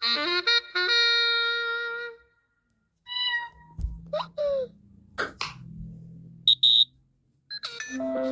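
Samsung Galaxy A36 5G's speaker playing preset notification sounds one after another: a short chime of bell-like notes that rings out, then after a brief gap a sound made of short high blips and chirps over a low hum, and another tone starting near the end.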